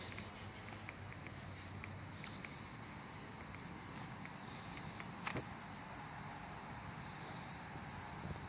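Steady high-pitched drone of insects, with faint small ticks and a single light click about five seconds in.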